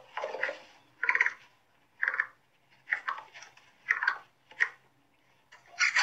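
Capybara giving short repeated calls, about one a second, with a pause of about a second before the last one near the end.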